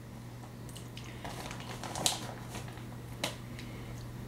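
Plastic bag of marinated beef being handled, with faint rustling and two sharp taps, about two seconds and about three seconds in. A steady low hum runs underneath.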